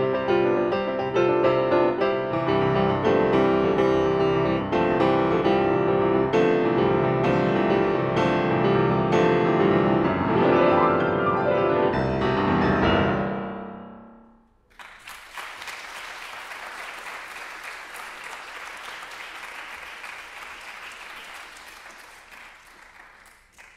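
Grand piano playing dense classical chords that end on a final chord, dying away about fourteen seconds in. Audience applause follows and tapers off near the end.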